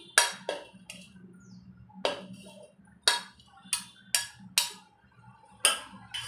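A steel spoon clinking and scraping against a plate and the rim of a steel pot as grated gooseberry is pushed off the plate: a string of sharp, irregular clinks.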